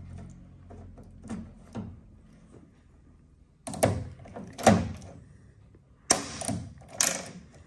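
Concertina (lazy-tongs) pop rivet gun setting a blind rivet in aluminium capping: a few faint clicks, then four sharp metallic clacks about a second apart as the scissor linkage is pumped to pull the rivet tight.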